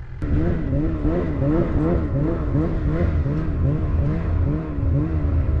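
Snowmobile engine running under throttle, its pitch wavering up and down about twice a second. It starts abruptly just after the beginning.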